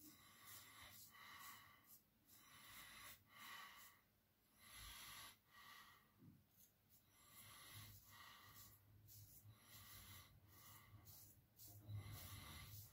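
Faint scraping of a Damascus-steel straight razor cutting stubble on the chin and neck, in short quick strokes, two or three a second.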